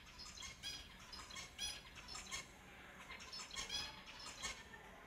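Pet finches calling: many short, repeated chirping calls, several birds overlapping, in quick runs throughout.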